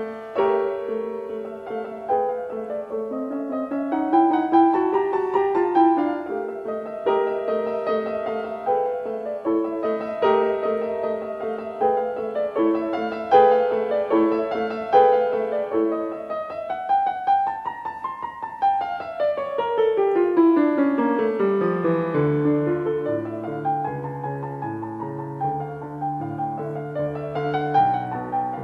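Background piano music: melodic runs with a sweeping rise and fall of notes about two-thirds through, then lower bass notes joining.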